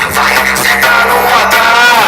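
A loud song playing through a homemade sound rig of small amplifier modules and speakers during a playback test, with a steady bass line.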